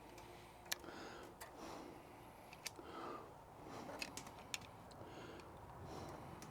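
Faint, irregular light clicks and taps, about half a dozen, from a screwdriver and small metal parts being handled while a carburetor's fuel hose is worked off.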